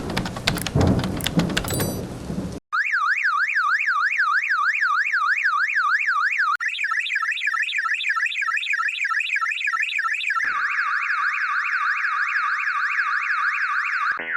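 Rain and thunder for the first two or three seconds. Then an electronic car alarm siren starts suddenly and cycles through its tones: a rapid rising-and-falling whoop, then a choppier warble about four seconds later, then a fast, steady trill.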